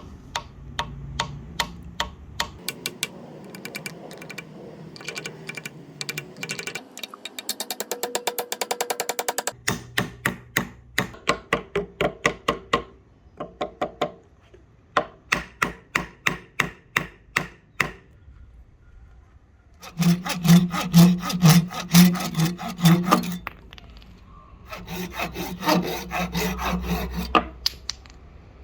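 A hand tool worked back and forth on hard ebony wood in repeated strokes, in several runs with short pauses; one run about a third of the way in is very fast, and the loudest run comes about two thirds in.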